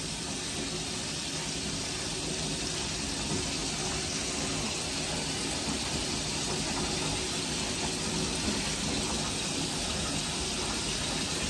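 Bathtub filling from the tap: a steady rush of running water.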